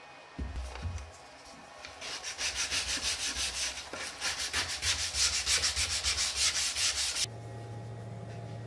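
Hand-sanding the edge and juice groove of a wooden cutting board with a small piece of sandpaper, in fast back-and-forth rubbing strokes of several a second. The rubbing stops abruptly about seven seconds in, leaving a low steady hum.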